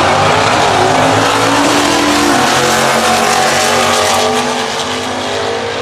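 Two stock-class drag cars, a 1970 Buick GS with a manual gearbox and a 1971 Plymouth Duster automatic, launching off the line and accelerating hard down the strip, engines at high revs rising in pitch through the gears. The sound eases a little after about four seconds as the cars pull away.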